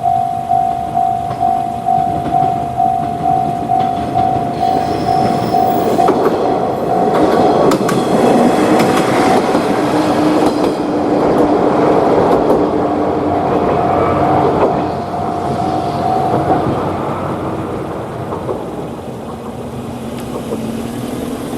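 Japanese level-crossing warning bell ringing its rapid "kan-kan" at about three strikes a second while a train passes, its rumble and wheel clatter swelling in the middle; the bell stops about three-quarters of the way through, leaving the train noise fading.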